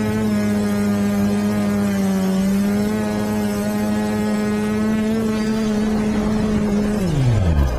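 Quadcopter's electric motors and propellers whining at a steady pitch, heard from its onboard camera. Near the end the pitch falls steeply as the motors spin down on touchdown.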